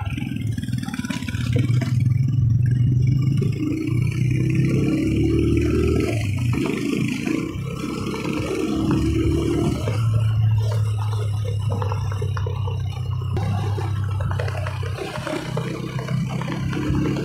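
Motorcycle engine running under way, its pitch rising several times as it accelerates, over a steady rush of wind and road noise.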